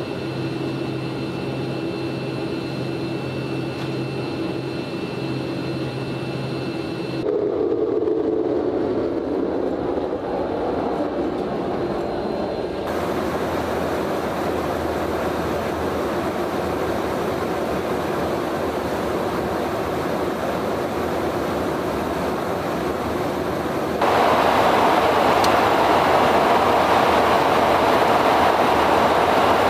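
Steady in-flight cabin noise of a KC-135R Stratotanker: the rumble and rush of engines and airflow. It changes character suddenly about 7 and 13 seconds in, and turns louder about 24 seconds in.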